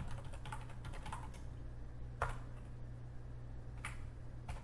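Typing on a computer keyboard: a run of irregular key clicks, with one louder click about two seconds in, over a low steady hum.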